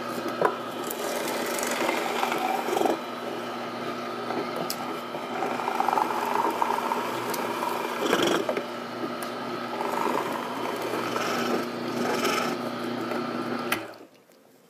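Slow-speed twin-gear cold-press juicer (Tribest Green Star Elite) running with a low steady hum while its gears crush and grind cucumber, with rough crunching now and then. It cuts off abruptly near the end.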